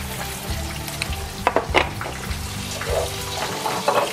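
Salmon fillets deep-frying in a pan of hot oil, a steady sizzle, with a couple of sharp utensil knocks about a second and a half in.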